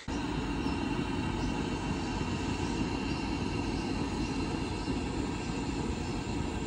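Portable gas camp stove burner running steadily under a pot: a constant, even rushing noise.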